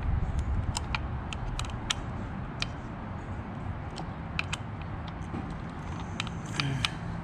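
Irregular small metallic clicks and ticks of a hand tool tightening the screws that hold the carburetor and isolator block on a 1/5-scale gas RC car engine, over a steady low rumble.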